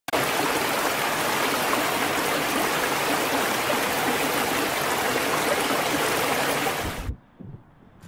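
Rocky stream rushing and splashing over boulders, a steady full water noise that cuts off suddenly about seven seconds in.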